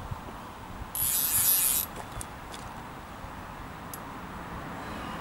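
A short rasping hiss or rustle lasting just under a second, about a second in, the loudest sound here, followed by a few faint ticks over quiet outdoor background.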